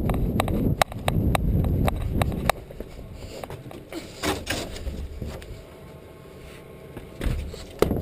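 Movement through dry brush: rustling and crunching with scattered twig snaps and sharp clicks, over a low rumble of the camera being carried for about the first two and a half seconds; it then goes quieter, with a few more clicks near the end.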